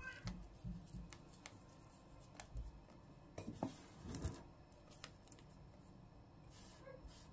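Faint, scattered small clicks and rustles of chopped pistachios being sprinkled by hand onto cake batter in a tin, a little busier about halfway through.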